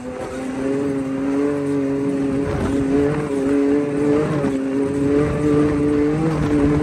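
Side-by-side UTV engine running at a fairly steady speed while driving, its pitch dipping and rising only slightly, over a noisy rush of terrain and wind. It grows a little louder in the first second.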